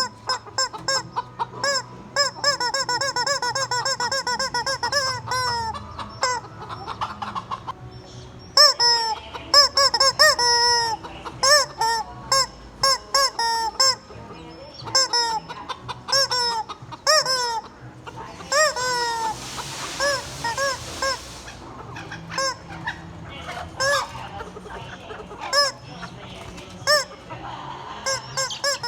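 Chickens and a squeaky rubber chicken toy making many short, arched squawks and clucks, a fast run of them in the first few seconds. A brief rushing noise comes about 19 seconds in.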